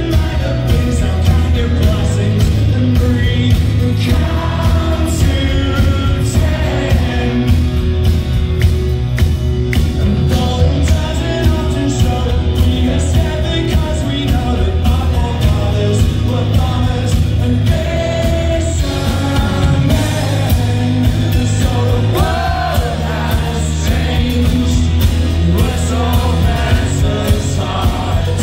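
A live rock band playing loudly with a lead singer: electric guitar, bass guitar and drums.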